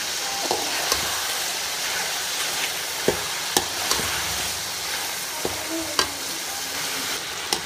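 Chicken pieces sizzling as they fry in oil in a pan, stirred with a metal slotted spatula that clicks and scrapes against the pan now and then.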